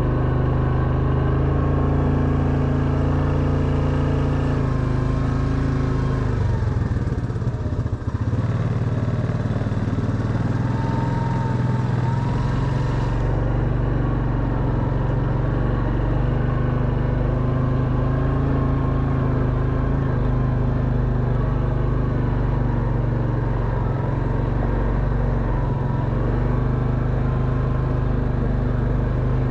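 Quad bike engine running at fairly steady revs, with a brief dip in level about eight seconds in.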